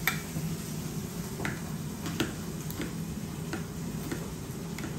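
Metal fork and spoon tapping and scraping in a child's bowl as noodles are cut up and mixed, giving irregular light clicks. A steady low hum runs underneath.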